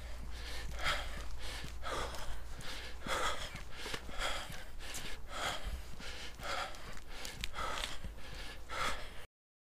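A man's heavy, rhythmic breathing, about two breaths a second, from the exertion of walking up a steep hill. It cuts off suddenly near the end.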